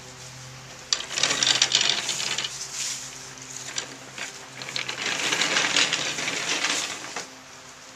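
A wooden chair bed on wheels is rolled across a paved patio covered in dry fallen leaves, the leaves crackling and rustling with many small clicks. This comes in two stretches, starting about a second in and again about halfway through.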